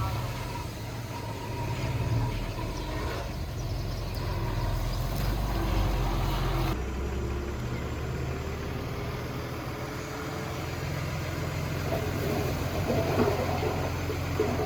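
Heavy earthmoving machine's diesel engine running with a steady low rumble. The sound changes abruptly about seven seconds in, and some rattling comes in near the end.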